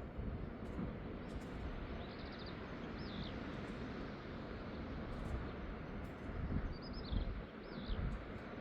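Steady rushing of wind and sea with a gusty low rumble, while a small bird calls twice in pairs: a quick high trill followed by a swooping chirp, about two seconds in and again about seven seconds in.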